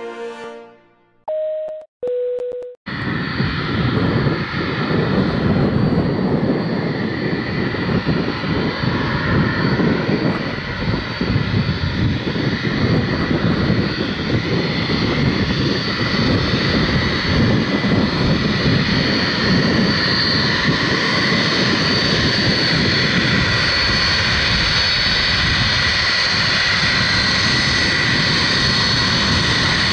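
Boeing 757-200's twin jet engines running as the airliner taxis: a steady, loud jet rumble with a high whine held on one pitch. It starts about three seconds in, after the end of some music and two short beeping tones, each a little lower than the one before.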